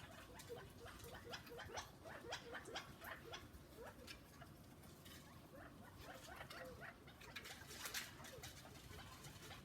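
Small birds chirping faintly, a quick run of many short chirps that drop in pitch.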